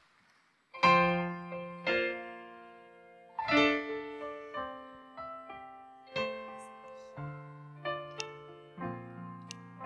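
Piano chords played on a stage keyboard, starting about a second in: slow chords struck one after another and left to ring, the opening of a song's piano introduction.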